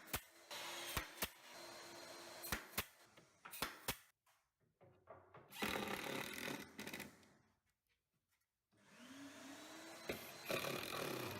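A handheld power tool's motor running in three bursts, spinning up at the start of each. Several sharp knocks come during the first burst.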